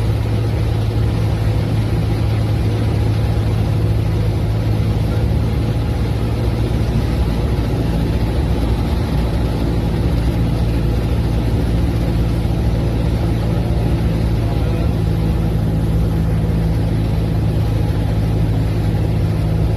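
Cessna 172P's four-cylinder piston engine and propeller droning steadily, heard inside the cabin during the approach to landing.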